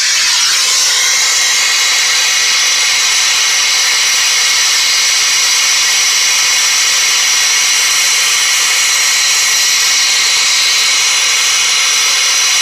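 Handheld Goss gas blow torch burning with a loud, steady hiss as its flame heats a seized, rusted pulley nut. The hiss comes on suddenly at the start and then holds even.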